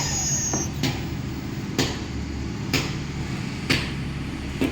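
CNC router machine noise: a steady low hum with a high whine that dies away just under a second in, then a sharp tick about once a second.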